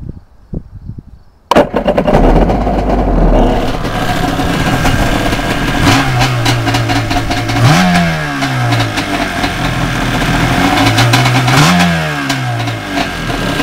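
Kawasaki 750SX jet ski's two-stroke twin engine, fitted with a Coffman's expansion pipe, starting up about a second and a half in after a few clicks, then running out of the water, revved briefly twice, each time rising and falling in pitch.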